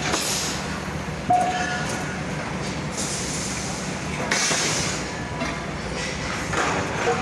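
Construction machinery running steadily with a low hum, broken by a sudden short clank about a second in and a few brief hissing bursts.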